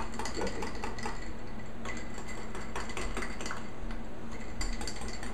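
A long metal spoon stirring Bloody Marys in tall drinking glasses, making many light, irregular clinks against the glass.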